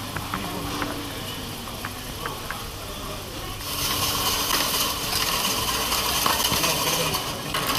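Background bustle of a busy roadside food stall: a steady noise with scattered light clinks and knocks. It grows louder and hissier about halfway through.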